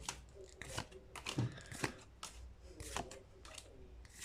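Pokémon trading cards being slid and flicked through by hand: a run of short papery swipes and snaps, several a second.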